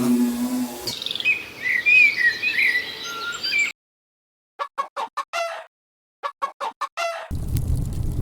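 A run of separate stock sound effects. A chime-like tone dies away, then birds chirp and twitter for about three seconds. After a silence come two quick runs of about five short calls each, and a low, throbbing rumble starts near the end.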